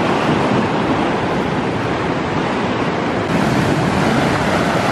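Heavy surf breaking and churning against rocks in a loud, steady wash, with some wind on the microphone.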